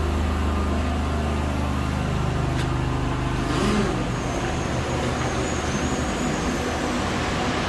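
Steady mechanical drone of running water-extraction and drying machinery. A low hum weakens about halfway through, and a faint high whine comes in over the second half.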